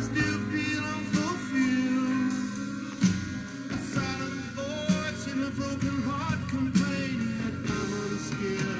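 A song with singing and a steady beat, played from a vinyl LP on a Dual 505-2 belt-drive turntable.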